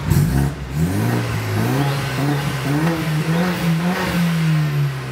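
BMW 320i engine heard from inside the cabin, accelerating: its pitch climbs in the first second or so, holds high, then falls away near the end.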